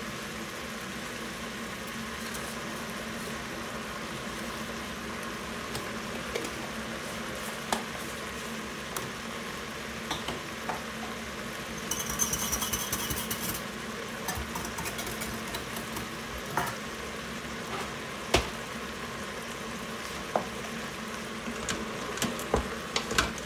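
Chicken and diced vegetables sizzling gently in an Instant Pot's stainless inner pot on sauté, with scattered light clicks. There is a brief rustle about halfway through, and near the end a wooden spoon knocks against the pot as the food is stirred.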